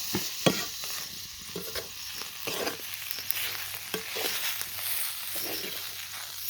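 Tomato and spice masala sizzling in an iron pan while a spatula stirs it, with irregular scrapes against the pan over a steady hiss. The tomatoes are being fried until their raw smell cooks off.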